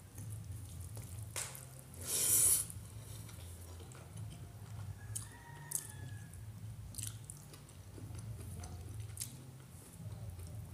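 Soft eating-by-hand sounds: fingers working rice and picking through a steel bowl of small-fish curry, with a few faint clicks and one louder rustling burst about two seconds in, over a low steady hum.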